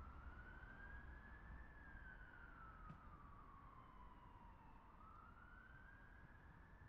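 Faint, distant emergency vehicle siren in a slow wail: it rises, falls over a few seconds, then rises again near the end, over a low rumble.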